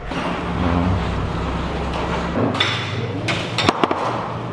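A steady background hum, then a few sharp knocks and clinks of plates and crockery being set down on a table, a little past the middle.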